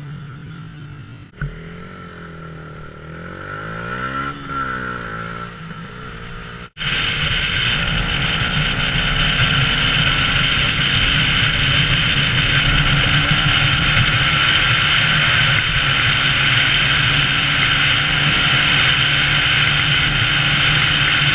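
Motorcycle engines revving, their pitch rising and falling as the bikes pull away. After a sudden cut about seven seconds in, a motorcycle cruising at steady speed: a constant engine note under loud, steady wind rush.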